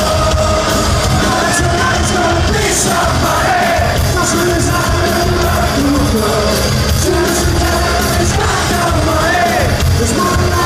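Loud live rock band playing in a hall, with singing and yells from the crowd over the music.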